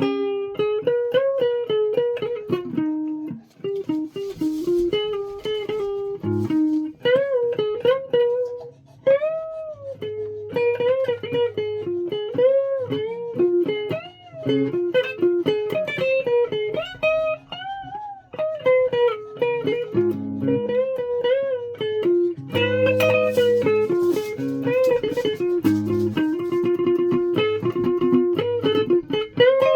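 Guitar playing a single-note melody with many bent notes sliding up and down in pitch, over lower bass notes.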